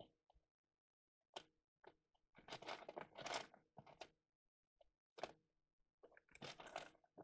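Loose electronic components, capacitors and potentiometers, clattering and shifting in a clear plastic storage tub as a hand rummages through them. It comes in several short bursts, the longest and loudest from about two and a half to four seconds in.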